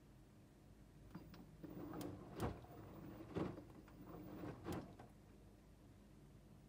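Drum of an LG TurboWash front-loading washing machine turning in its swing wash motion: wet laundry and water sloshing, with three louder thuds as the load drops. It starts about a second in and stops about five seconds in.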